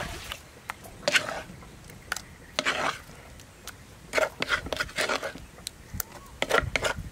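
Wooden spoon scraping sticky chilli paste out of a wooden mortar and dropping it into a glass bowl, in several short scrapes with small ticks.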